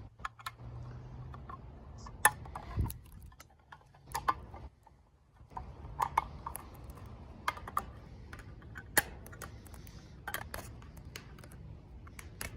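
Swiss Army knife can opener blade levering and cutting through a tin can lid: sharp, irregular metallic clicks and snips a second or so apart, as the blade is hooked under the rim and pressed down a little at a time.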